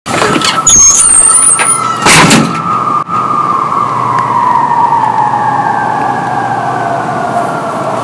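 Outdoor warning siren sounding like an air raid siren, one long tone that slowly falls in pitch. Loud knocks and rustles cover it during the first two and a half seconds.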